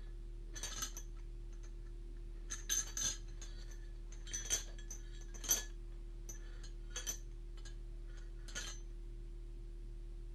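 Steel chain of riveted ankle shackles clinking in about six short, irregular jingles as the feet shift, over a steady low hum.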